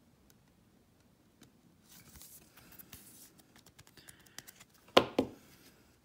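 Clear plastic card sleeve rustling and lightly clicking as a trading card is slid into it, then two sharp knocks about five seconds in.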